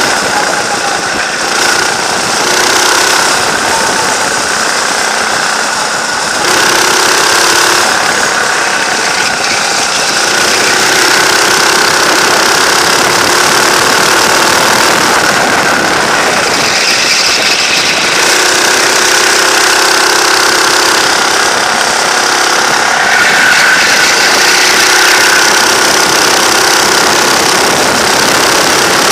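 Kart engine running hard and close to the microphone, its note rising and falling as the throttle is opened and lifted through the laps, with brief dips around six seconds in and again around seventeen seconds.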